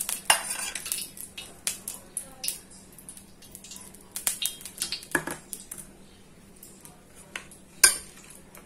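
Cooking oil heating in a wok, crackling and popping in irregular small ticks, with one louder pop near the end, over a faint steady low hum.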